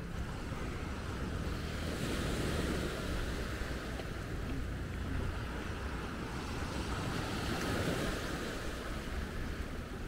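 Small waves breaking and washing up over the sand, the surf swelling twice, about two seconds in and again near eight seconds in, with a low wind rumble on the microphone.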